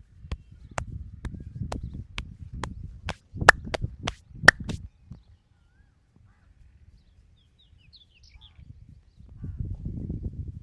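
Massage strokes: hands striking the body in a steady rhythm, about two sharp slaps a second over low rubbing, with two much louder smacks after about three and a half seconds. The strikes stop about halfway through; a few faint bird chirps follow, then low rubbing returns near the end.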